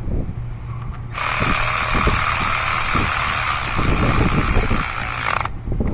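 Cordless electric ratchet running down a new spark plug into the V8's cylinder head: the motor whirs steadily for about four seconds, starting about a second in and cutting off suddenly.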